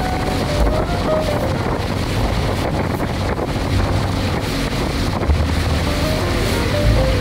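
Wind buffeting the microphone and water rushing past the hull of a motorboat underway through choppy water, with a few stronger low gusts.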